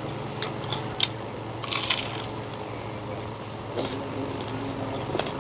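Close-up crunching and chewing of crisp fried tempeh, with the loudest crunchy bite about two seconds in and a few smaller clicks, over a steady low hum.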